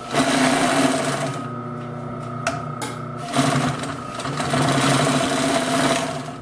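Consew 333RB-1 double-needle industrial sewing machine running, sewing at speed. It goes quieter for about two seconds a little over a second in, with one click, then runs loud again and eases off near the end.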